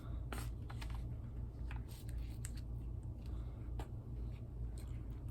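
Close-up eating sounds: scattered crisp clicks and crackles of chewing and handling food, over a steady low hum.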